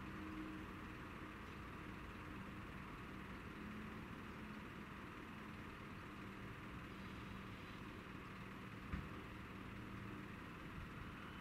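Faint, steady hum of a DB Class 423 electric multiple unit moving slowly towards the listener at low speed, with one brief click about nine seconds in.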